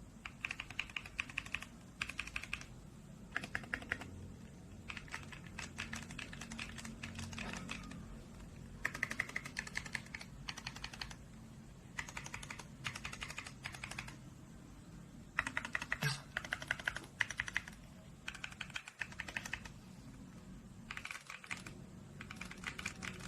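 Typing on a mechanical keyboard fitted with JERRZI Seashells factory-lubed linear switches: quick runs of keystrokes, each lasting about a second, with short pauses between them.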